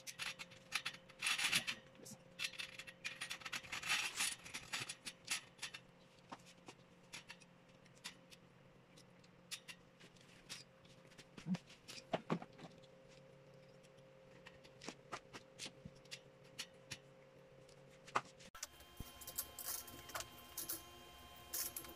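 Chrome wire shelving being assembled: scattered metal clicks, taps and scrapes as a wire shelf is worked onto the steel poles, busiest in the first few seconds, over a faint steady hum.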